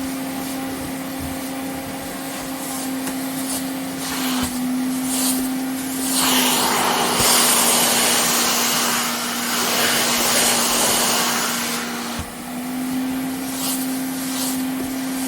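Vacuum cleaner running with a steady motor hum. Midway, for about six seconds, the rushing of air grows louder and the motor pitch drops slightly.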